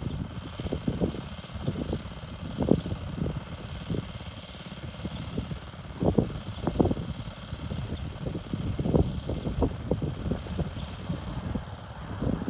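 Wind buffeting the microphone in irregular gusts, a low rumble that swells and drops every second or so.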